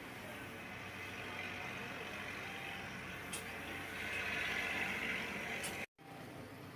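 A Yutong coach running, heard from inside the driver's cab: a steady hiss with a faint low hum, a single click about three seconds in, and a louder hiss from about four seconds in that cuts off suddenly near the end.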